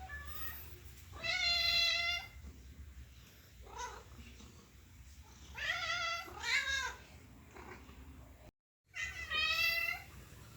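Domestic cat meowing repeatedly: about five separate meows, the longest about a second in, others short and bending up and down in pitch. A brief dropout to silence comes before the last meow.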